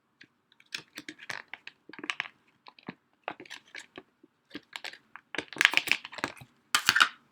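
Plastic retail packaging being handled and opened: irregular crinkling, crackling and clicking, growing loudest in a few long crackly bursts near the end.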